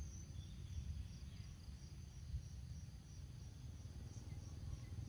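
Faint outdoor ambience: a steady, high-pitched drone of insects over a low rumble, with one soft tap about halfway through.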